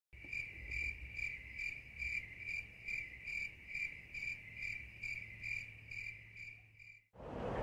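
Cricket chirping in an even rhythm, about two short high chirps a second, with a faint low hum beneath; it cuts off suddenly near the end.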